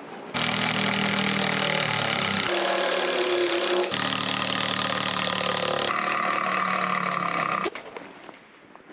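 A motor running steadily, heard in several short clips that cut abruptly from one to the next, then stops suddenly near the end.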